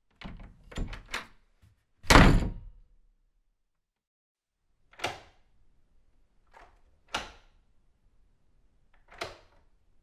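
Door sound effects: a quick rattle of handle and latch clicks, then the door shutting hard about two seconds in, followed by four separate short door clicks or knocks spaced a second or two apart.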